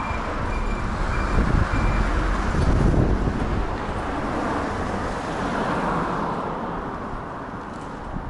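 Road traffic noise with wind buffeting the microphone on a moving bicycle. A vehicle passes, loudest about three seconds in, then fades away. Faint beeps sound about twice a second and stop about two seconds in.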